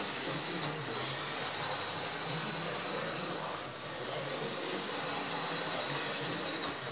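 Model Class 47 diesel locomotive running around the track: the steady whir of its small electric motor and wheels on the rails. A high whine in it swells near the start, fades in the middle, and swells again near the end as the locomotive comes round.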